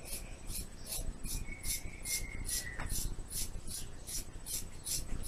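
Scissors snipping through a thick ponytail of long hair, short snips repeating about three times a second.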